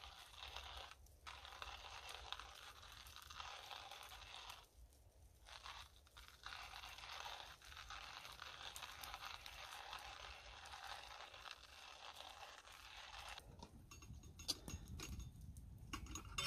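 Hand-cranked stainless steel coffee grinder grinding coffee beans: a steady gritty crunching as the handle turns, with a few brief pauses. It stops about thirteen seconds in, followed by a few light clicks.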